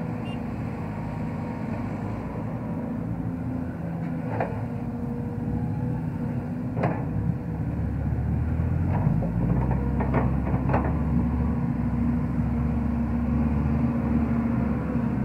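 Sumitomo hydraulic excavator's diesel engine running steadily, growing louder and heavier from about halfway through as the machine swings and digs under load. Several short sharp knocks come in the middle.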